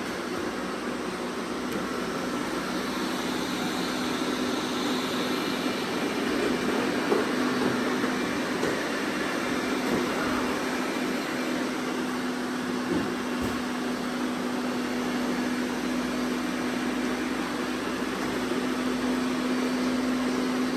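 Robot vacuum cleaners running: a steady whir of suction fans and brushes with a steady low hum, and a few light knocks.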